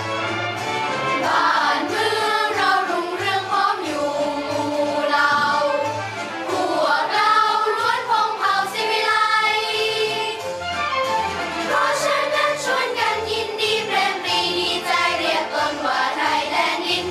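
Children's choir singing a Thai song in unison, over steady low instrumental accompaniment.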